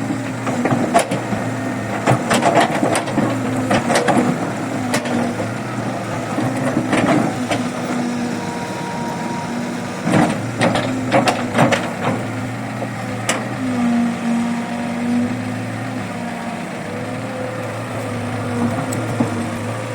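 Diesel engine of a Kobelco 135 excavator running steadily, with two spells of sharp clanking and knocking from the bucket working soil and rock, about two seconds in and again about ten seconds in.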